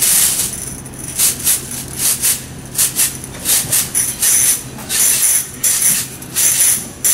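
Handheld tambourines shaken and struck in a rhythm. A longer jingling shake opens it, followed by sharp jingle hits in quick pairs, about two to three a second.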